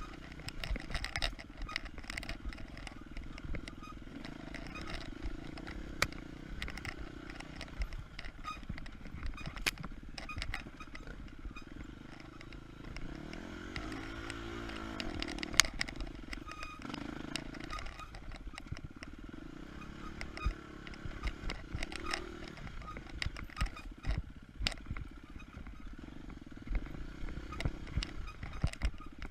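KTM 250 EXC-F single-cylinder four-stroke enduro engine running while riding a trail, its revs rising and falling around the middle, with frequent sharp clicks and knocks over the rough ground.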